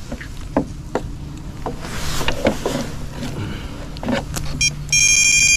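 Knocks and clatter of gear being handled in a small fishing boat, over a steady low hum. Near the end comes a short electronic beep, preceded by a few quick clicks, lasting about a second.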